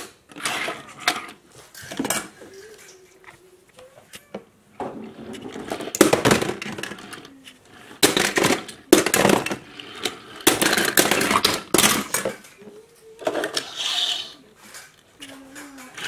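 Small die-cast metal toy cars clicking and clattering as they are set down and pushed against each other on a tabletop. Louder rattling comes around six seconds in and again from about eight to twelve seconds in.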